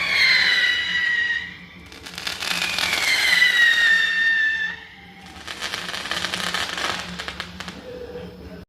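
Rojão skyrocket fireworks: two whistles, each falling in pitch, the second starting about two seconds in, with dense crackling over the second whistle and again through the second half.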